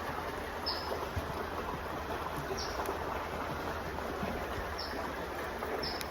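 Creek water running steadily, with a bird giving four short, high chirps a second or two apart.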